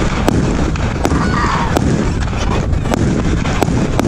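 1.3G compound firework cake firing, a sharp shot about every two-thirds of a second over a steady low rumble.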